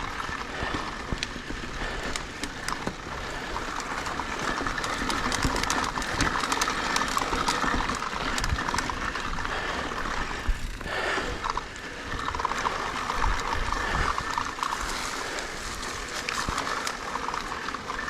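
Mountain bike riding down a rocky trail: tyres rolling and grinding over rock, with the frame and parts rattling in many short knocks.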